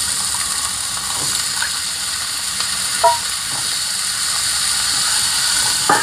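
Oil sizzling steadily in a frying pan as potato pieces are dropped in, with a short metallic clink about three seconds in and a knock near the end.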